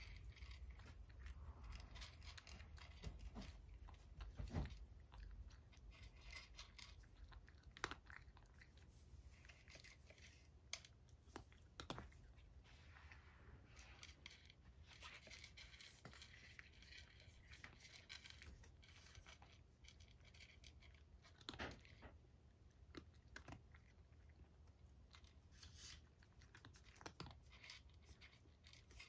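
A cat eating dry kibble from a dish: faint, irregular crunching and chewing.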